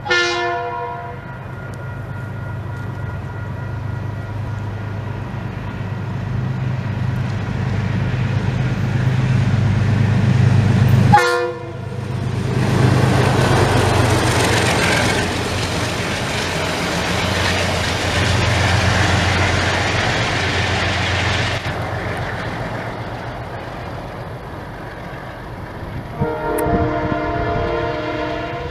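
Diesel locomotives running at speed: the deep, steady throb of a KiwiRail DX-class diesel with horn blasts, one falling in pitch as it passes, followed by the loud rush and wheel noise of the train going by. Near the end an approaching train sounds its horn in several short blasts.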